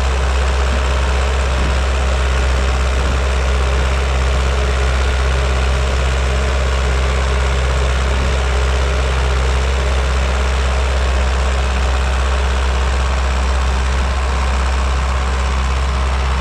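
Diesel engine of a vintage Zetor Crystal 8011 tractor running steadily at an even pitch, a strong low drone with no change in speed.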